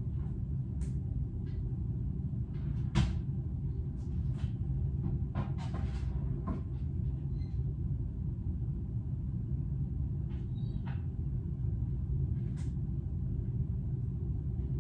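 A steady low rumble under scattered light clicks and knocks, with one sharper knock about three seconds in.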